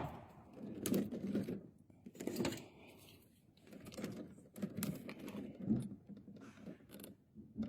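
Scattered light clicks and knocks from handling electrical wiring, spaced irregularly.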